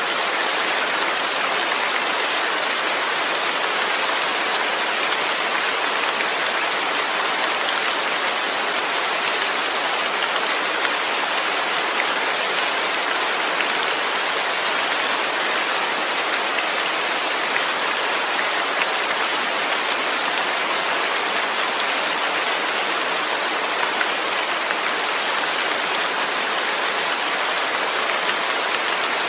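Steady rain falling, an even hiss of drops with a few faint individual drop ticks.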